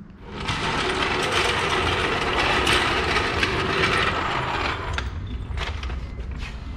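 Mechanical tool work on a car: a dense, loud rattling that lasts about four seconds and then gives way to lighter scattered clicks and knocks.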